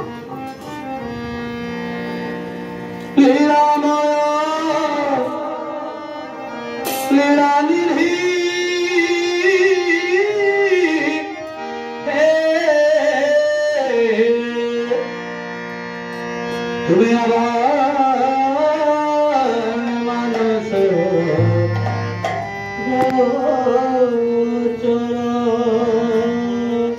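A male voice sings a devotional kirtan into a microphone in long, ornamented phrases with short pauses between them, beginning about three seconds in. Under the voice are steady held tones from a harmonium and strokes on a two-headed barrel drum.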